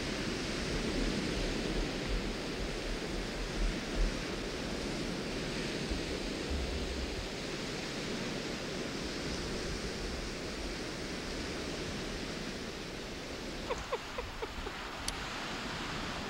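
Steady rush of wind and small waves on a sandy shore, with wind buffeting the microphone in low rumbling gusts in the first few seconds. A few short, faint chirps near the end.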